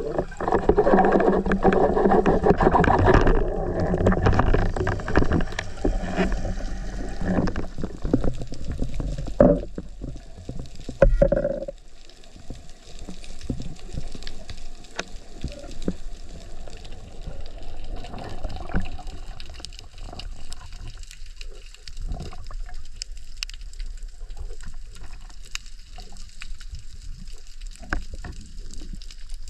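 Underwater noise on a diving camera: a loud rush of water for about the first seven seconds, two sharp knocks around nine and eleven seconds in, then quieter water with many faint crackling clicks.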